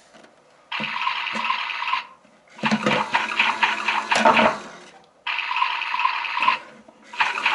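A toy appliance's electronic water sound effect, played through a small speaker in bursts of a second or two with short gaps between them.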